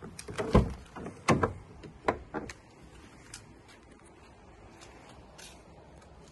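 Car's front passenger door being opened: the outside handle pulled and the latch clicking, then a few knocks as the door swings open, all within the first two and a half seconds.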